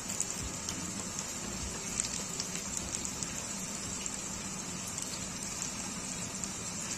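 Chicken pieces deep-frying in hot oil in a pan: a steady sizzle with scattered crackles and a few sharp pops.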